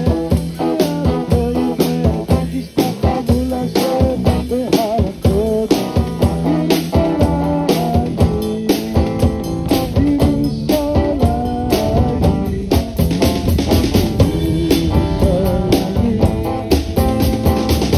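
Chasidic rock band playing live: a drum kit keeping a steady beat under electric and acoustic guitars.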